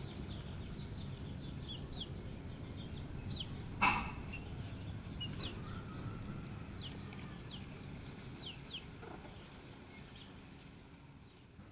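Young wild chicks giving short, high, downward-sliding peeps every so often over a steady outdoor background, with one sharp tap about four seconds in. The sound fades down near the end.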